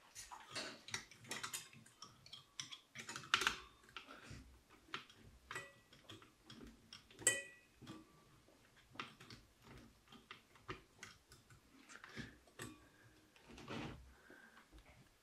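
Hands working at the mounting of Golden Orb II CPU coolers on a motherboard: a faint, irregular run of small clicks and taps of metal and plastic, with a couple of sharper clicks about three and a half and seven seconds in.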